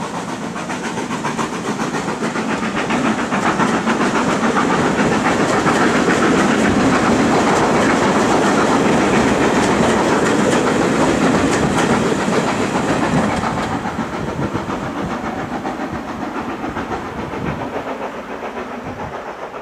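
Passenger coaches of a steam-hauled train rolling past beneath on a steep climb, wheels clicking over the rail joints. The sound swells to its loudest midway, then fades away over the last several seconds as the last coach goes by.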